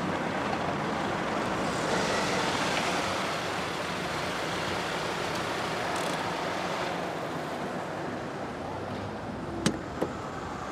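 A car drives up and comes to a stop, its engine running under steady street traffic noise. Two sharp clicks come close together near the end.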